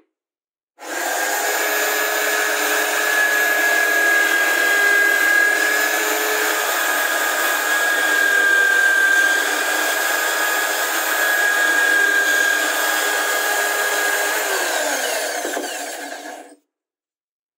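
Corded electric drill in a homemade drill press running at speed and drilling holes through a plywood template into a wooden board: a steady motor whine that starts about a second in and cuts off abruptly near the end.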